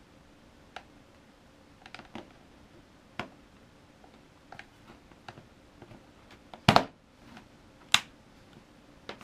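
Small clicks and knocks of cables and connectors being handled on a tabletop, then a louder clatter as a mains plug is pushed into a power-strip socket, and a single sharp click about eight seconds in as the power strip's rocker switch is pressed on.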